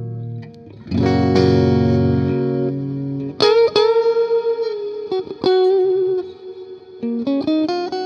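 Electric guitar played through Amplitube amp simulation with two plate reverbs layered on the send effects, giving a massive reverb wash. A held chord fades, a new chord is struck about a second in, then single notes, some bent or wavering in pitch, ring out over long reverb tails.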